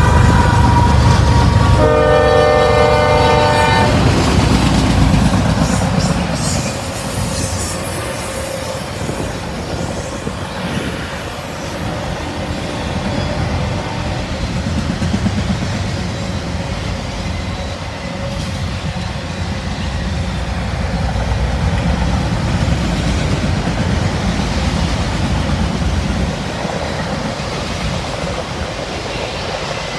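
A CSX diesel freight locomotive passing close at speed sounds its multi-note air horn briefly at the start, then again for about two seconds starting about two seconds in, over the heavy rumble of its engine. The rumble fades after a few seconds, and a long string of auto rack cars rolls past with steady wheel noise and clickety-clack on the rail joints.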